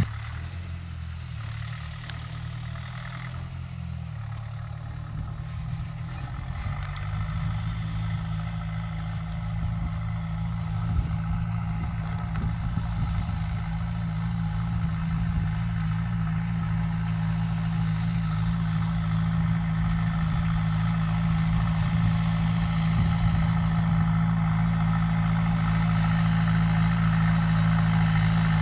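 Tractor's diesel engine running steadily under load as it pulls a mounted seed drill across the field, growing steadily louder as the tractor approaches.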